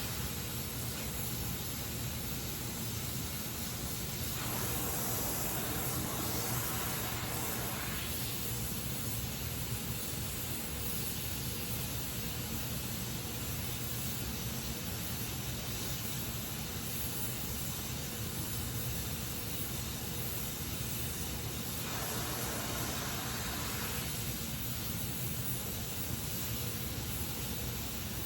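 Gas welding torch flame hissing steadily while welding aluminium. Twice the hiss changes tone for a few seconds, about four seconds in and again past twenty seconds.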